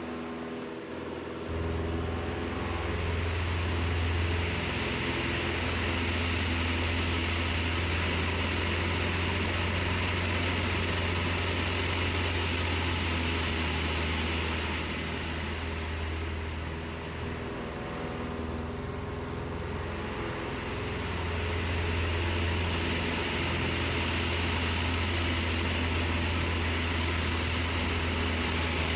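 Propeller engine of a Pelegrin Tarragon ultralight heard from inside the cockpit during aerobatics: a steady low drone with a hiss of rushing air. It eases off for a few seconds about midway, then builds back up.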